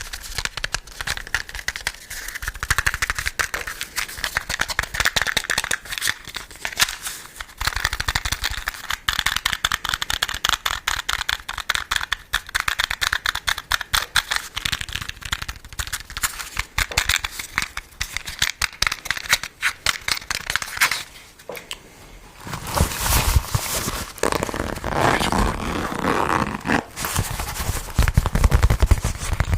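ASMR tapping and scratching on an object: a dense stream of rapid small clicks. It pauses briefly about 21 seconds in, then gives way to a louder, rougher scratching sound.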